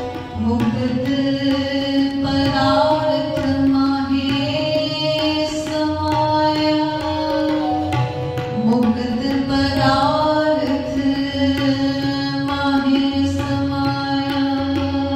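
Shabad kirtan: voices singing long held, gliding phrases together with bowed string instruments, while a tabla keeps a steady rhythm.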